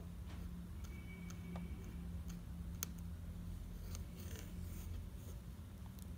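Fine nib of a Calligraphy 048 fountain pen scratching and ticking on paper as letters are written by hand, with a sharper tick just before three seconds in, over a low steady hum.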